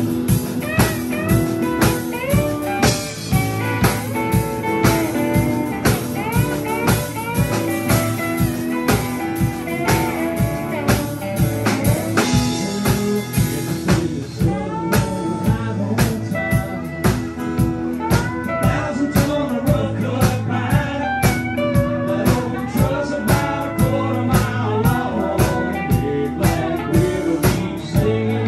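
Live band playing a blues-rock song: acoustic and electric guitars over a drum kit keeping a steady beat, with notes bent on the guitar.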